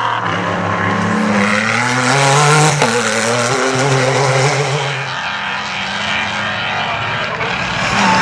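Off-road rally cars' engines at speed on a dirt stage. One engine revs up, changes gear a little under three seconds in, and holds at high revs. A rougher-sounding engine takes over in the second half.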